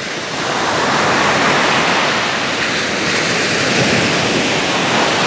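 Sea surf breaking and washing up a sandy beach: a loud, steady rush of waves that swells up about half a second in.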